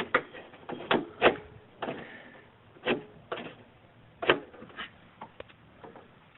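A string of irregular sharp clicks and knocks, about a dozen, from handling in and around a car door, the loudest about a second in and about four seconds in.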